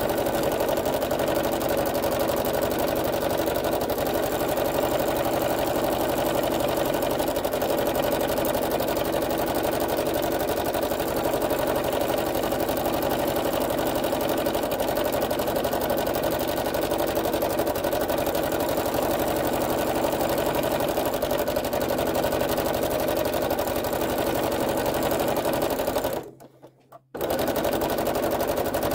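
Domestic sewing machine running steadily, its needle stitching continuously during free-motion thread painting around a fabric-painted leaf. The stitching breaks off for about a second near the end, then starts again.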